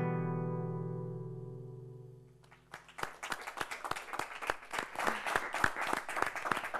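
The song's final guitar chord ringing out and fading away over about two and a half seconds, then a studio audience applauding.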